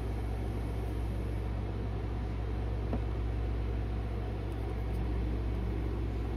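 A steady low rumbling hum, with a faint click about three seconds in.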